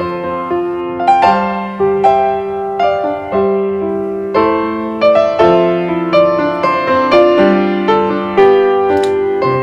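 Background piano music: a gentle tune of single struck notes and chords.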